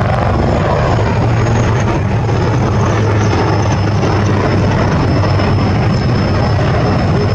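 HAL Light Combat Helicopter flying a display pass, its twin-turboshaft engines and rotor running loud and steady. A low rotor thrum carries a thin, steady high whine above it.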